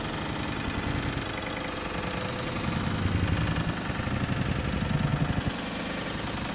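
Steady low outdoor rumble with a rapid flutter, swelling in the middle and dropping off suddenly about five and a half seconds in.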